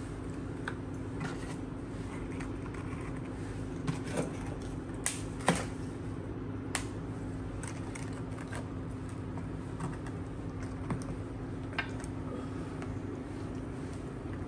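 Graham crackers being handled, snapped to size and set onto pudding in a glass baking dish, with scattered sharp clicks and rustling of the plastic cracker sleeve, over a steady low hum.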